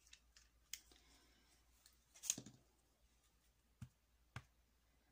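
Near silence broken by small handling sounds of alcohol ink bottles and a dauber on the work surface: a few light clicks, a short scraping rustle about two seconds in, and two soft knocks near the end as a bottle is set down.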